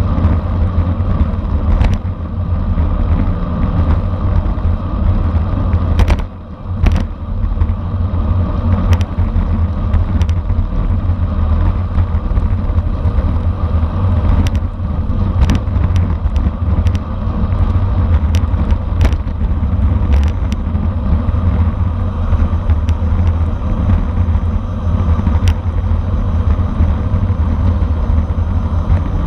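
Wind buffeting the microphone of a camera riding on a racing bicycle, a loud steady rumble with scattered short clicks and knocks. It eases briefly about six seconds in.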